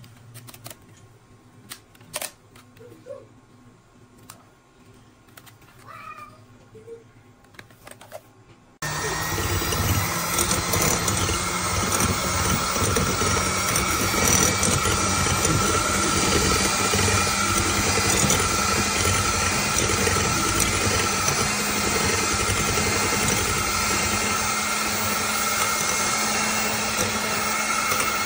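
Quiet at first with a few clicks and taps; about a third of the way in, an electric hand mixer's motor starts suddenly and runs at a steady, unchanging pitch, its stainless steel beaters whirring in a bowl of thin batter.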